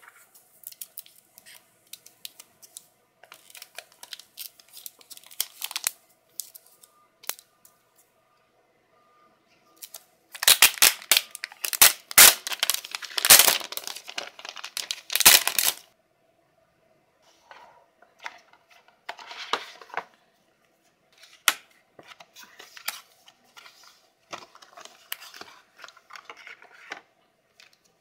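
Cardboard and plastic packaging rustling and crinkling as an Apple wireless keyboard is handled and taken out of its tray, in scattered bursts with a loud, dense stretch of crinkling for about five seconds near the middle. Lighter paper rustling follows toward the end as the documentation pack is handled.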